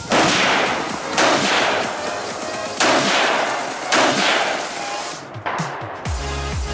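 Four shots from a semi-automatic rifle, a second or so apart, each ringing out with a long fading echo. Electronic music with a steady beat comes in near the end.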